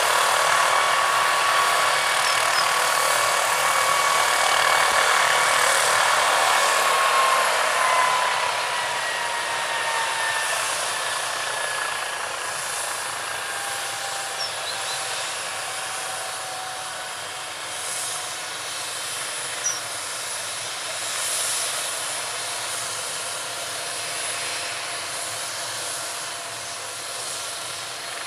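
MD 520N helicopter's turboshaft engine whining steadily over a loud rushing hiss. About seven seconds in, the whine glides down in pitch and the sound grows quieter as the engine spools down, then settles into a lower, steady whine.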